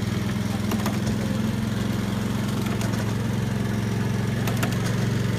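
Small engine of a miniature ride-on train running steadily as it pulls the passenger cars along the track, a low even hum with a few light clicks.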